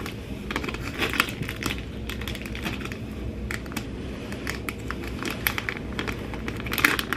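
A candy wrapper crinkling and crackling as it is handled and opened, in many quick, irregular crackles that bunch up near the end.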